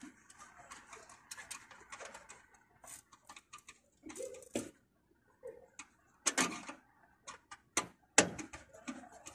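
Small screwdriver working a wire terminal screw on an air-conditioning unit's control panel: irregular clicks, ticks and short scrapes of metal on metal, with louder clicks about six and eight seconds in.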